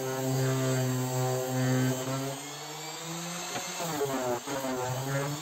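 Random orbital sander running against a pine lath. Its motor hum holds steady, then its pitch wavers down and up a few times from about three and a half seconds in.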